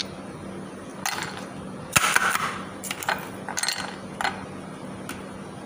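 Ice cubes dropped one by one into a container of malunggay leaves, clinking and knocking at irregular intervals.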